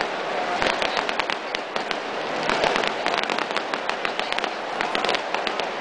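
Fireworks crackling, with many sharp cracks in quick, irregular succession.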